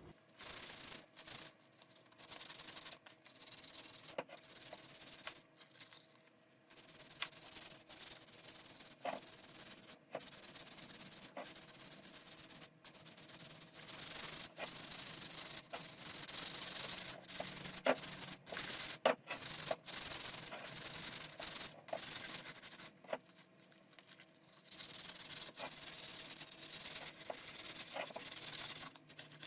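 Sanding on the rusty metal rim of a wheelbarrow wheel to take off rust and burrs: a rough scratching in irregular strokes with short pauses.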